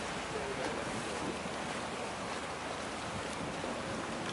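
Steady rush of wind and water from a small motorboat tender under way, with wind noise on the microphone.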